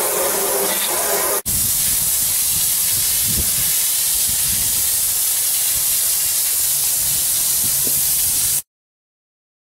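Water jetting from a garden-hose-fed PVC spray wand, a steady hiss of spray hitting hard surfaces. It breaks off for an instant about one and a half seconds in, then cuts off abruptly about a second before the end.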